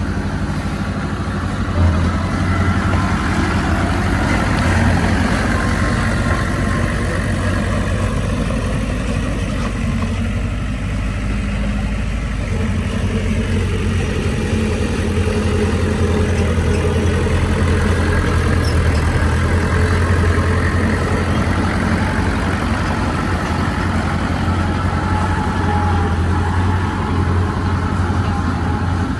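Heavy diesel engine of earthmoving machinery running steadily, a deep continuous drone with mechanical clatter above it, as a bulldozer or dump truck works at a land-fill site.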